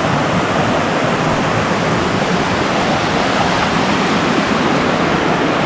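Steady rushing of a fast-flowing mountain river, a loud, even roar of water.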